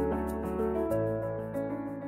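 Soft background music of sustained keyboard chords, growing gradually quieter.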